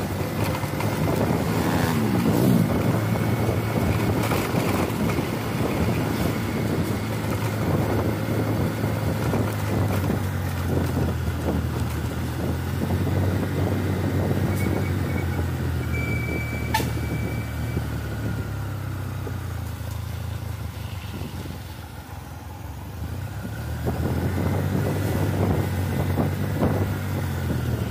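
Mitsubishi Canter diesel truck grinding up a steep grade, its engine under heavy load in a steady low drone. The drone eases for a moment about two-thirds of the way through, then builds again.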